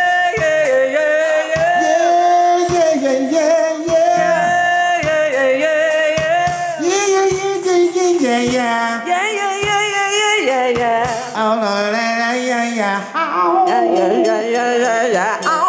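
A live band playing with a singer: a voice holds and slides between long notes over bass, keyboards and steady drum hits.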